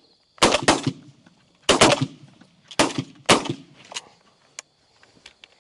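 Shotguns firing at a passing dove: about six sharp shots in quick succession over about three seconds, followed by a few lighter clicks.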